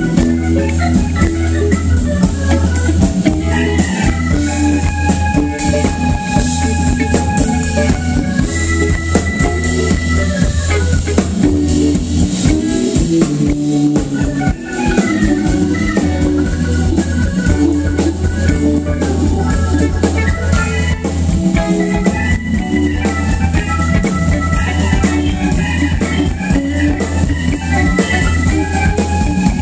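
Live band playing an instrumental: a keyboard with an organ sound holding long chords over a drum kit and electric guitar, with a steady bass line underneath.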